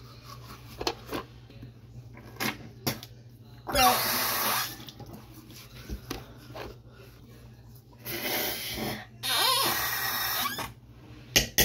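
Teeth being brushed with a bamboo toothbrush, the faint scrubbing broken by three short rushes of water at the bathroom sink: one about four seconds in and two close together near the end.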